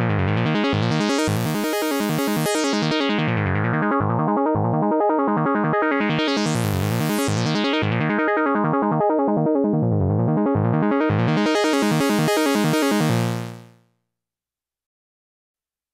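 A Sequential Prophet-6 analog polyphonic synthesizer plays a sustained vintage-style patch whose brightness swells and fades three times, as its filter opens and closes. The sound dies away near the end.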